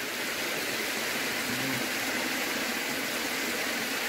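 Steady hiss of falling rain, even and unbroken.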